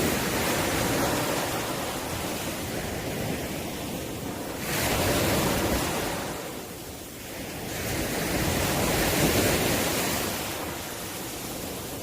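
Sea waves surging in and drawing back, the wash of surf swelling and easing in slow cycles every few seconds.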